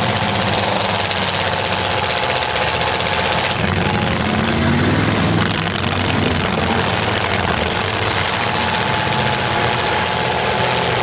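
Demolition derby car engines running loudly and steadily, one revving up and back down about four seconds in.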